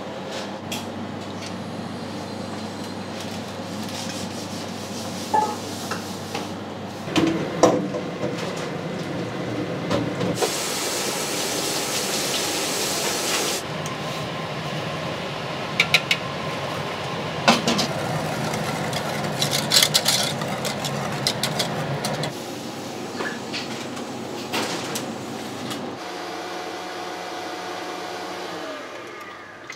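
Bakery kitchen work noise: a steady machine hum under scattered clinks and knocks of utensils, with a hiss lasting about three seconds a third of the way in.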